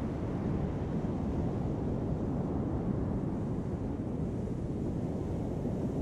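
Heavy ocean surf breaking on a sand beach: a steady low rumble with no single wave standing out.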